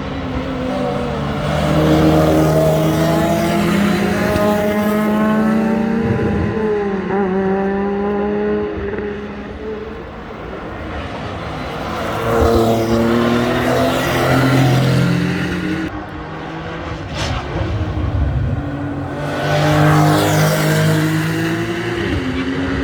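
GT3 race cars passing at racing speed, one after another, their engines at high revs. Each car swells and fades as it goes by, the loudest passes coming about two seconds in, around twelve to fourteen seconds and around twenty seconds. The engine pitch jumps up and down with gear changes.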